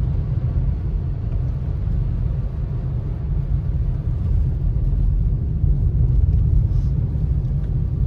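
Steady low rumble of a car driving on a wet, slushy road, heard from inside the cabin: road and engine noise.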